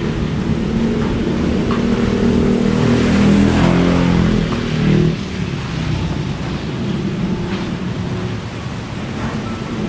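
Strong typhoon wind rushing and buffeting, a heavy low rumble. A gust builds to its loudest about three to four seconds in, then drops off suddenly about five seconds in.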